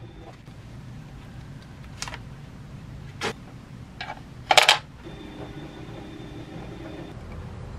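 Chopsticks and a ceramic plate knocking against each other and the wooden serving tray: four light clinks a second or so apart, the loudest a ringing clink about halfway through. This is followed by a steady hum lasting about two seconds.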